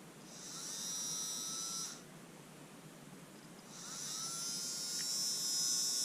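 Bare brushed motor from a Bosch Ixo cordless screwdriver, powered on its own out of the tool, spinning up twice. The first run lasts about a second and a half; the second starts a couple of seconds later and keeps running. Each run opens with a rising whine that settles to a steady pitch, showing the motor itself works.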